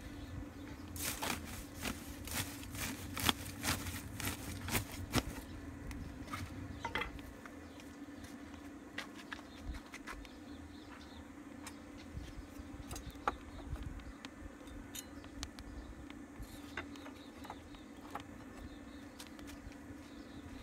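A quick run of sharp clicks and knocks for a few seconds near the start, then scattered single clicks, as metal rods with fish are set over a smoking tandoor. A steady low buzz runs underneath.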